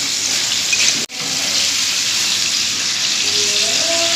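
Steady hissing noise, briefly dropping out about a second in.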